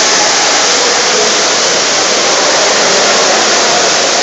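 Steady rushing and splashing of water churned up by water polo players swimming hard, filling a tiled indoor pool hall.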